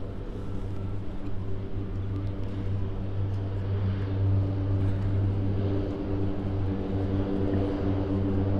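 Cessna Grand Caravan EX floatplane's single Pratt & Whitney PT6A-140 turboprop at takeoff power: a steady propeller drone that grows gradually louder during its takeoff run across the water.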